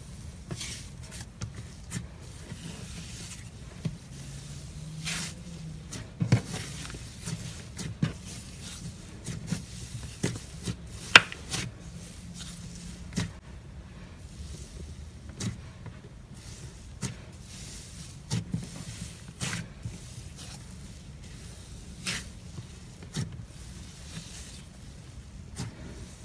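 Hands pressing and stretching soft, fluffy slime, giving irregular sticky crackles and pops, the sharpest about eleven seconds in. Under them a motorcycle engine hums low in the background, rising in pitch around five seconds in.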